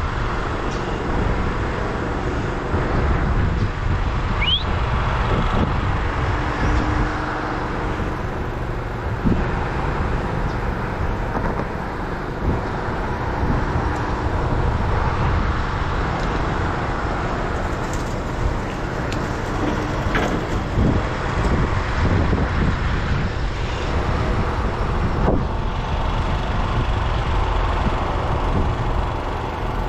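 Steady low rumble of a running vehicle engine mixed with road traffic noise.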